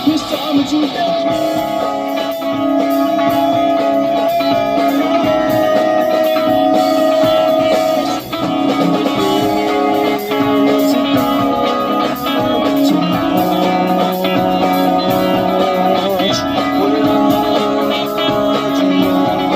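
A rock band playing an instrumental passage led by electric guitar, with long held notes over a steady backing.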